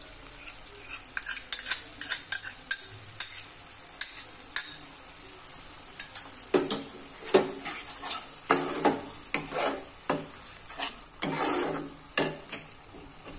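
Metal spatula stirring sour yogurt into onion-spice masala frying in a non-stick kadai, with a steady frying sizzle underneath. Light clinks and taps at first while the yogurt goes in, then louder scraping strokes against the pan from about six and a half seconds in.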